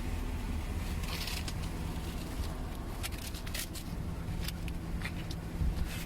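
Scattered short clicks and scrapes from a truck tire being fitted by hand, over a steady low hum.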